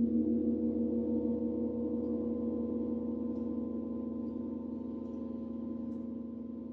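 Large gong ringing out after a single stroke, a low, wavering hum of several tones that slowly fades.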